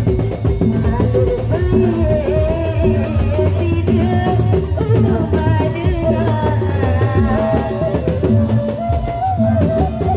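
A woman singing a wavering melody into a microphone over a Sasak procession band of bamboo suling flutes and drums, with a steady repeating low beat underneath.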